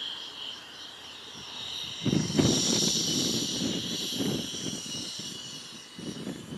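Electric ducted fan of a foam RC F-16 jet whining at high power for its takeoff roll, swelling about two seconds in, with gusts of low rumble.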